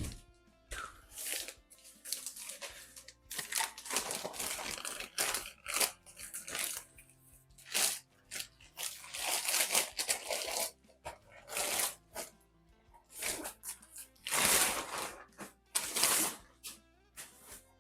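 Packing material rustling, crumpling and tearing in irregular bursts as parts are unwrapped, over quiet background music.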